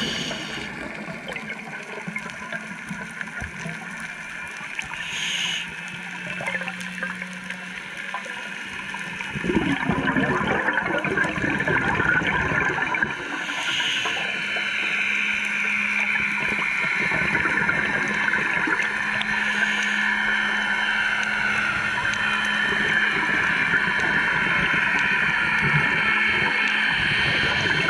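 Underwater noise recorded on a scuba dive: a steady watery hiss with faint steady tones, broken a couple of times by short gurgling bursts of exhaled regulator bubbles.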